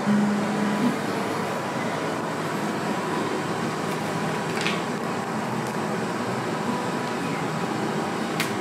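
Steady indoor room hum and hiss, like air conditioning, with a faint click about halfway through and another near the end.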